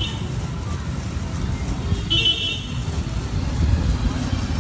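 Street traffic rumbling, with a vehicle horn honking once, briefly, about two seconds in.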